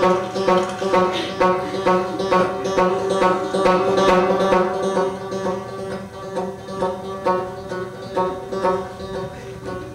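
Music on a plucked string instrument: picked notes repeating about two to three times a second over steady held tones, growing a little softer in the second half.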